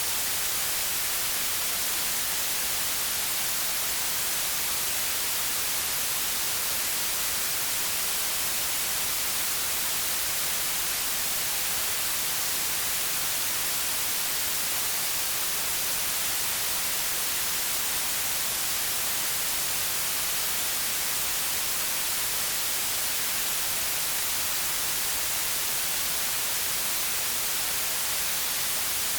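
White noise: a steady, unchanging hiss, strongest in the high frequencies.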